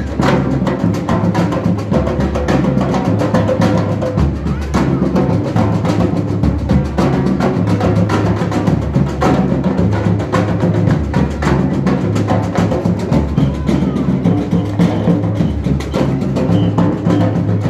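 Drums playing a fast, busy rhythm of many quick strikes over a low, steady drone.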